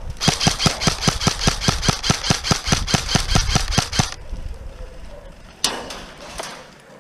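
Airsoft gun firing a rapid string of shots, about seven a second, for about four seconds, then stopping. A sudden brief burst of noise follows near the end.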